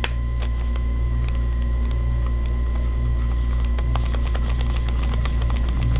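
A felt-tip marker cap clicks off at the start, then the marker tip dabs and scratches on folded paper in many quick light ticks. A steady low electrical hum runs underneath.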